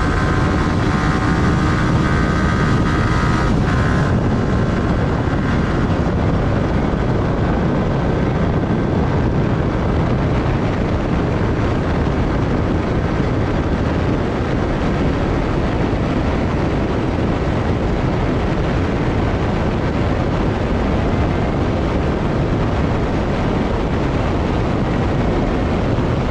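Wind rushing over the microphone with the drone of a Yamaha R15's 155 cc single-cylinder engine beneath, as the motorcycle pulls in sixth gear from about 110 to 140 km/h. Some faint whining tones in the first few seconds fade out, leaving a steady rush.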